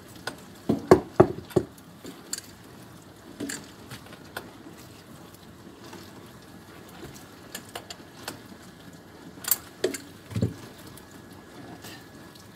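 Clicks and knocks of metal plumbing fittings and tools being handled while an adapter is fitted to the cold-water supply valve under a sink: a cluster of sharp clicks in the first two seconds, a few scattered ones, then several louder knocks with a dull thud about ten seconds in.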